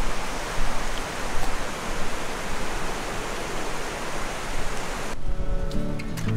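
Steady rushing of a swollen, fast-flowing muddy river. About five seconds in it cuts off abruptly and acoustic guitar music begins.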